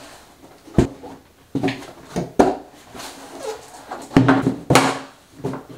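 Hard plastic folding pet stairs clacking and knocking as they are unfolded and handled: about five sharp knocks over a few seconds.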